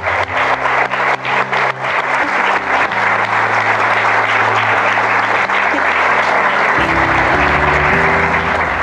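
Wedding guests applauding: separate claps at first, soon merging into steady, loud applause. Music with sustained low notes plays underneath and grows louder near the end.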